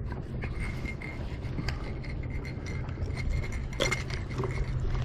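Scattered light clicks, clinks and scrapes of a fish-lip gripper and hook being handled over a landing net as a catfish is unhooked, over a steady low hum.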